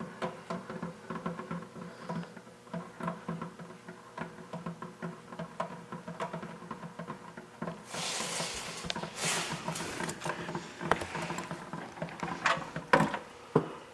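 Background music with a plucked guitar. From about eight seconds in there is a noisy rush lasting a few seconds.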